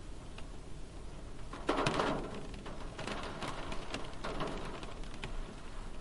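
Light rain on a car's body, heard from inside the cabin: scattered single drops tapping, with a denser clatter of drops about two seconds in and again from about three to four and a half seconds.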